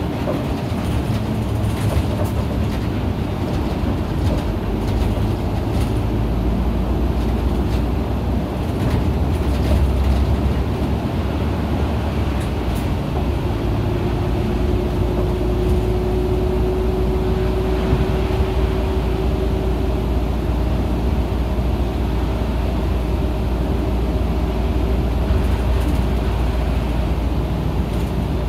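Isuzu KL-LV280N1 city bus underway, heard from inside the cabin: steady engine and road noise. A thin whine comes in about halfway and rises slowly in pitch.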